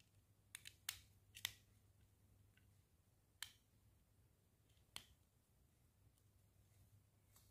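Small plastic mini building bricks clicking as they are pressed and snapped together: a quick run of sharp clicks in the first second and a half, then two single clicks about three and a half and five seconds in.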